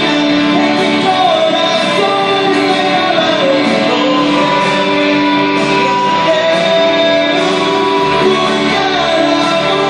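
A man singing a pop ballad into a handheld microphone over a backing track with guitar.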